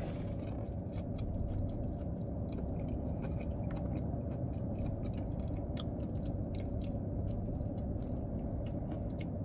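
Close-up chewing of fried chicken livers and gizzards, with small mouth clicks scattered throughout, over a steady low hum in the car cabin.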